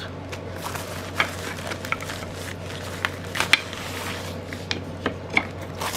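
Scattered light clicks, taps and rustles from the parts of a paint-by-numbers frame kit being handled and unpacked by hand, over a steady low hum.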